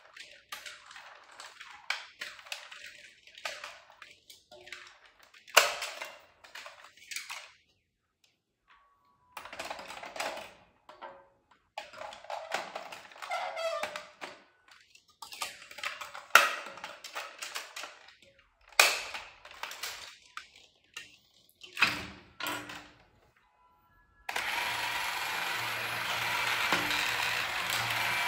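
Hard plastic model-kit parts being handled, clicked and snapped together in irregular knocks and clicks with short pauses. About 24 seconds in, a steady mechanical whir starts: the model's small battery motor and plastic gearbox running.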